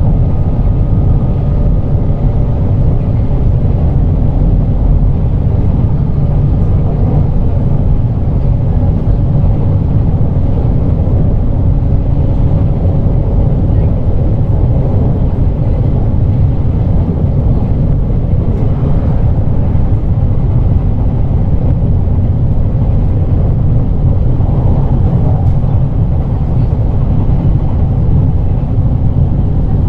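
JR Kyushu 817 series electric train running along the line: a steady, loud rumble of wheels on rail, with a faint steady whine that fades out about a third of the way in.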